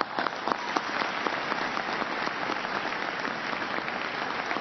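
Large audience applauding, many people clapping at once, beginning at once and holding steady.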